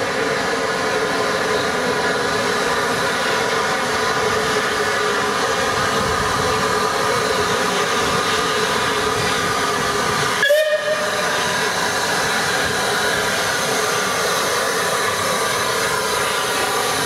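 Steam locomotive letting off steam, a Bulleid West Country class Pacific, 34046 Braunton: a loud, steady hiss with several whistling tones in it. About ten seconds in it breaks off for a moment and comes back with a short rising tone.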